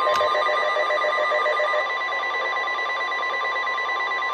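NOAA Weather Radio 1050 Hz warning alarm tone: one long, steady, high-pitched beep over radio hiss, announcing an emergency warning broadcast. A click sounds just after the start, and a fainter pulsing tone underneath stops a couple of seconds in.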